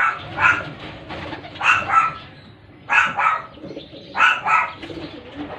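A dog barking in four quick double barks, evenly spaced, with pigeons cooing softly underneath.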